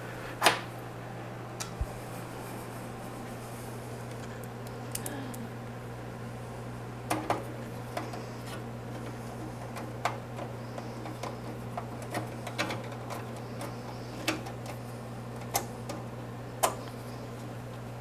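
Sleeved PC power cables and their plastic connectors being handled inside a steel PC case: scattered light clicks and knocks, a few sharper ones, over a steady low hum.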